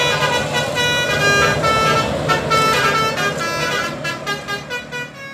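Basuri telolet multi-tone bus horn playing a quick melody of changing notes over a steady low hum, fading out near the end.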